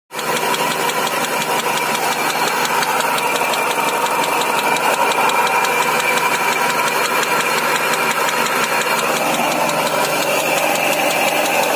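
Nissan Sentra engine idling with a steady knocking rattle from a worn connecting-rod bearing.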